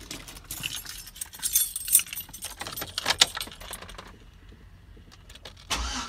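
A key ring jangling and clicking as the ignition key is fitted and turned in a Chevy Tahoe; near the end the engine begins to crank over, starting up to check the oil pressure reading after a new sensor.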